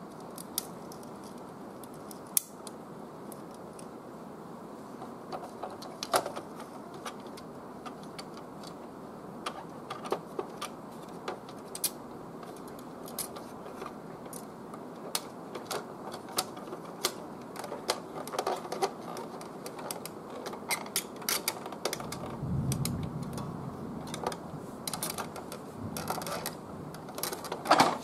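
Scattered plastic clicks and taps as the Epson L3110's paper-guide assembly is handled and pressed back into place by hand, sparse at first and growing more frequent, with a quick cluster of clicks near the end. A short low rumble comes a little past three-quarters of the way through.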